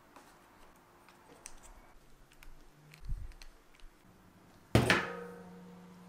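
Light handling clicks and a dull thump, then a sharp metallic knock that rings on and fades over a second or so, as a spoked bicycle wheel with a disc brake rotor is knocked while being handled.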